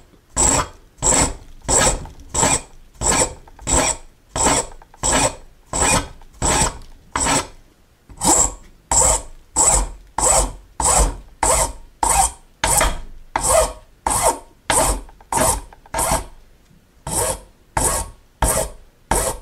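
A large file rasping across a small brass keyhole-escutcheon blank held in a vise, in steady strokes about three every two seconds, hogging off metal to cut 45-degree flats. The strokes pause briefly twice.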